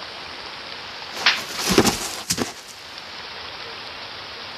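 Steady hiss of rain, broken about a second in by a loud burst of noise with a few sharp cracks that lasts about a second and a half.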